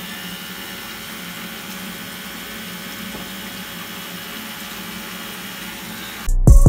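Water running steadily from a bathroom tap into the sink, an even rushing hiss, cut off near the end by loud music.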